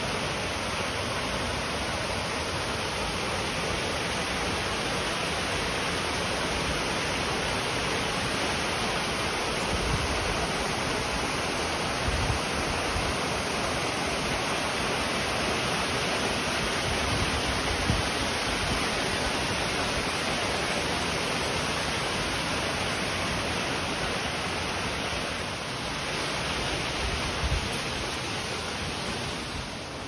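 Waterfall of about 25 metres, cascading down in tiers, with a steady rushing of falling water. A few brief low thumps stand out over it.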